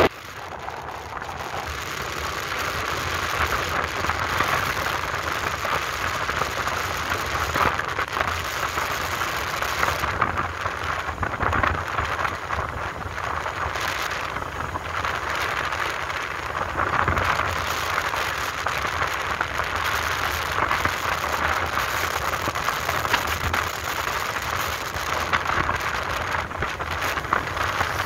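Riding noise from a moving motorbike: steady wind rush on the microphone over the bike's engine and road noise. It swells over the first couple of seconds, then holds steady.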